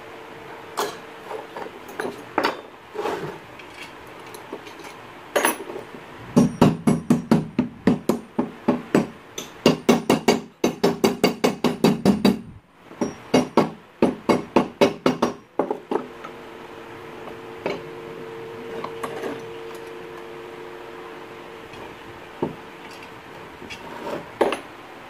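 Hammer blows on a bench-vise workpiece in a workshop: a few single knocks, then quick runs of about three to four blows a second through the middle, thinning back out to scattered knocks near the end.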